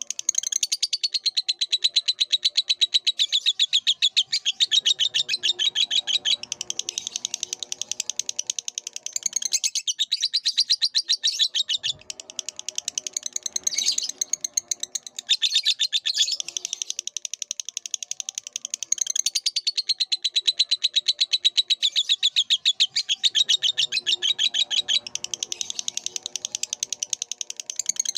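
Lovebird chattering song: a rapid, unbroken run of high-pitched chirps, many per second, pausing only briefly a few times.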